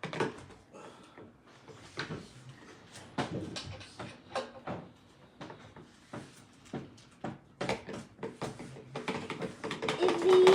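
Kitchen clatter: irregular knocks and clicks of things being handled on a counter, with a busier run of them near the end.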